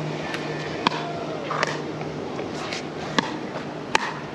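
Pickleball rally: a few sharp pops of paddles striking the hollow plastic ball, spaced unevenly a second or so apart.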